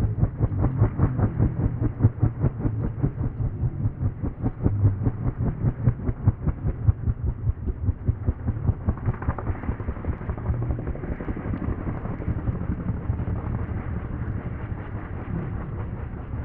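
WAH-64D Apache attack helicopter's rotor beating in a fast, even pulse over the whine of its twin turboshaft engines. The pulsing is sharpest in the first half and eases to a smoother, steadier beat about halfway through.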